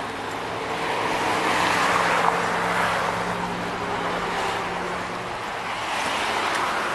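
Traffic noise: a steady wash of road noise from passing cars that swells and fades gently, with a low steady engine hum beneath it.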